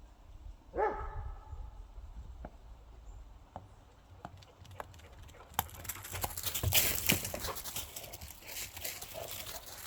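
A dog gives one short whine about a second in, then its paws scuffle and crunch over the ground, busiest for a couple of seconds around the middle.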